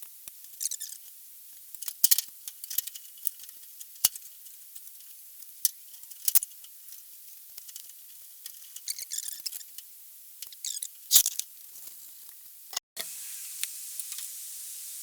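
Scattered small metallic clicks, taps and knocks of nuts, washers and bolts being handled and fitted while a front panel is bolted to a subframe, a couple of sharper knocks among them. Near the end the clicks stop and a steady faint hiss takes over.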